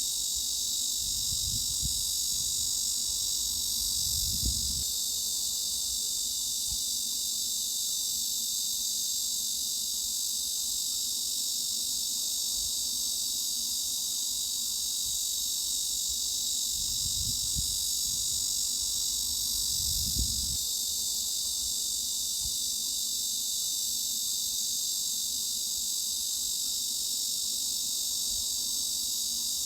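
Cicadas buzzing in a steady, unbroken high-pitched drone, used as a tinnitus masking sound. A faint low rumble comes in twice underneath it.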